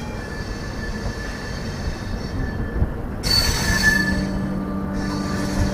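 LHB passenger coach wheels squealing on curved track over the rumble of the running train, with a louder burst of high screech and hiss about three seconds in that lasts roughly two seconds. A steady low hum joins shortly after.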